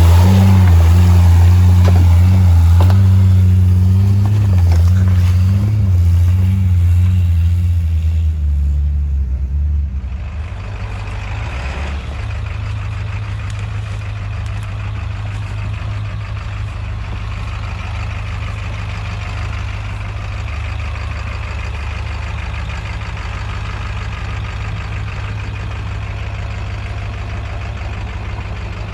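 Powerstroke diesel engine of a lifted Ford Bronco running at low trail speed, its pitch rising and falling with the throttle. About ten seconds in it drops to a quieter, steadier drone.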